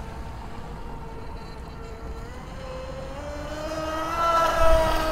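TFL Ariane 2 carbon-fibre mono-hull RC racing boat running at speed, its electric motor giving a steady whine. About three seconds in, the whine climbs in pitch and grows louder.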